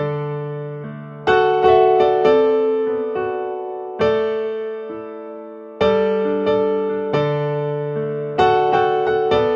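Slow solo keyboard music on a piano sound: quiet chords struck every second or two, each left to ring and fade before the next.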